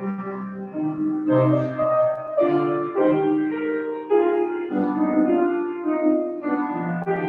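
Piano playing a slow piece of full chords, a new chord struck about every second and left to ring.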